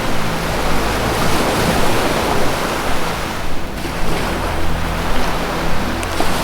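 Ocean surf washing in a continuous swell, with a low, steady synth drone of held notes underneath that changes chord about two-thirds of the way through.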